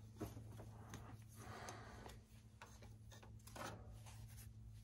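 Near silence: a few faint scattered clicks and light rubbing from parts being handled, over a steady low hum.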